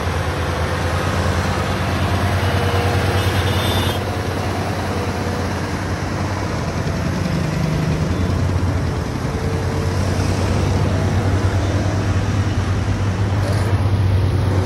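Mercedes-Benz Actros 1840 truck's V6 diesel engine running with a steady low rumble, pulling a heavy-haul trailer loaded with a bridge girder.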